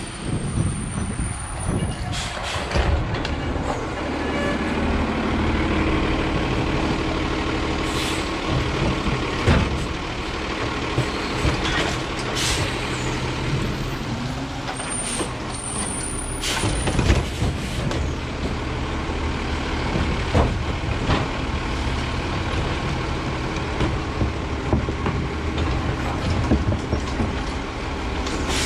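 Autocar Xpeditor garbage truck's diesel engine running steadily at close range, with several short, sharp air-brake hisses as it creeps forward.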